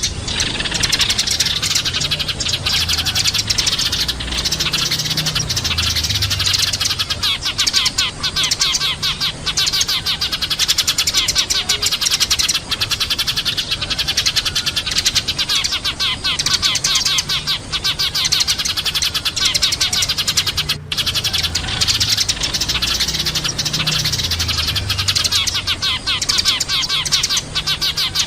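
Eurasian tree sparrows chirping continuously, many short overlapping chirps, like a chattering flock.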